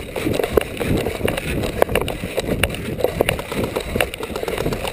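Running footsteps through a dry grass field, heard from a camera carried by the runner: a quick, uneven series of thuds with rustling.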